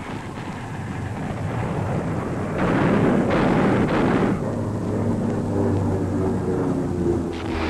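Rushing noise of rough sea and wind against a warship ploughing through heavy waves, swelling about two and a half seconds in. A few sustained low tones join about halfway through.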